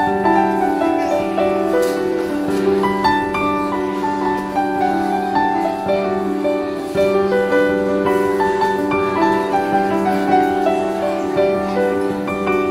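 Instrumental music: a piano melody over held low notes.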